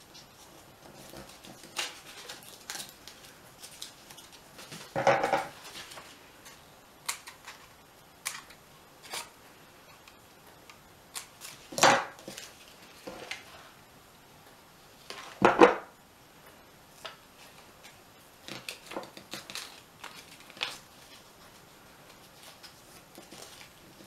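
Paper being handled and folded by hand: light crinkles and small taps, with three louder handling noises about five, twelve and fifteen seconds in.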